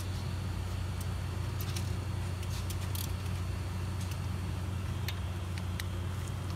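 Steady low mechanical hum, with a few faint, irregular light clicks from a socket wrench being handled.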